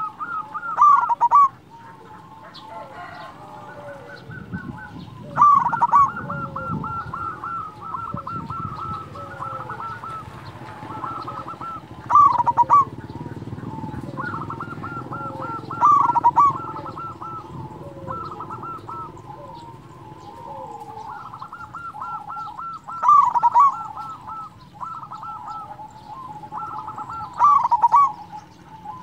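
Zebra dove (perkutut) cooing: repeated phrases of rapid rolling notes, with a loud accented note every four to seven seconds.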